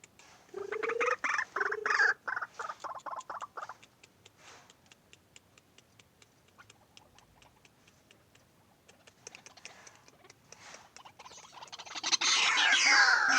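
White-breasted waterhen (ruak-ruak) calling: a fast run of harsh repeated notes for the first few seconds, then faint rapid ticking. A much louder, dense run of calls begins near the end.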